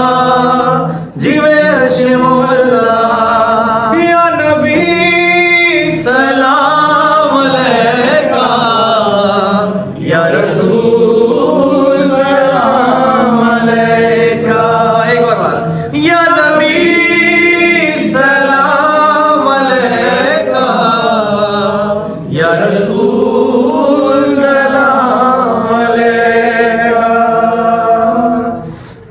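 A man singing a Punjabi naat unaccompanied, in long held, wavering phrases with short breaths between them.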